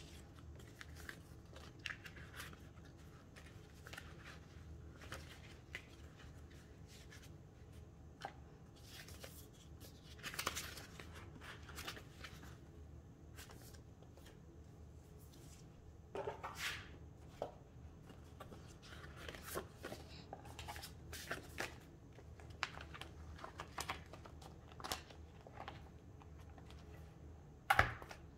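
Photocards and plastic binder sleeves being handled as cards are moved between binders: scattered soft rustles, crinkles and clicks, with a louder crinkle about ten seconds in and a sharp one near the end.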